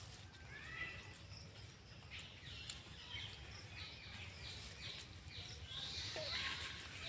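Faint chirping of birds: a run of short, high, mostly falling notes, over a steady low outdoor rumble.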